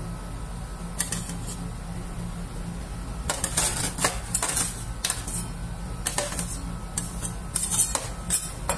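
A metal spatula scrapes and taps across a frozen stainless-steel cold plate in short bursts, clearing off leftover rolled ice cream. The scraping is busiest from about three to four and a half seconds in and again near the end, over a steady low hum from the machine's refrigeration unit.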